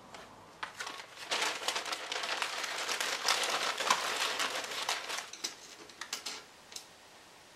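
Paper wrapping rustling and crinkling as hands sort through paper-wrapped sheets of glass, with a few light clicks near the end.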